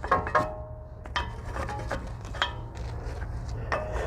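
Wire brush scraping and knocking against a steel brake caliper bracket to scrub rust off the pad slide surfaces, the metal giving a short clinking ring with each of about six irregular strokes.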